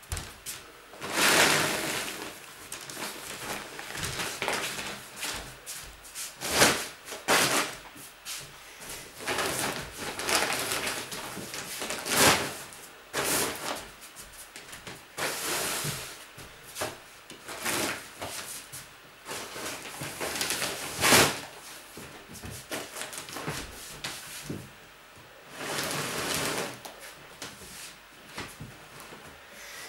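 Moving boxes and plastic storage crates being shifted and stacked by hand: repeated scraping and rustling, broken by several sharp knocks, the loudest three spread through the stretch.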